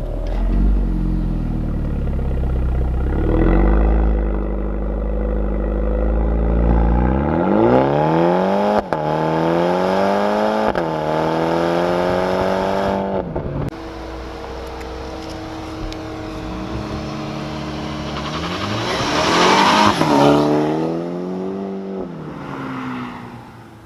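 MINI John Cooper Works turbocharged four-cylinder accelerating hard: a deep low drone, then the engine pitch climbs and drops sharply three times in quick succession as it shifts up through the gears. It settles to a steady run, revs up again to a peak, and eases off near the end.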